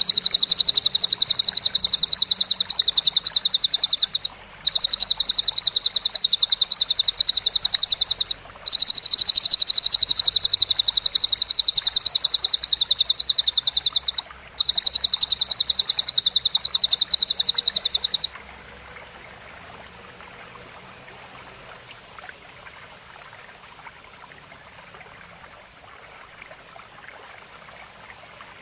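High-pitched, very rapid buzzing trill from a bird-training recording, in four long runs of about four to six seconds each with brief breaks, ending about two-thirds of the way in. Only faint background hiss follows.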